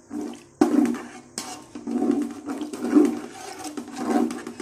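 Steel ladle stirring green chilli paste and fried onions in oil in a large metal pot: irregular wet sloshing and scraping strokes against the pot.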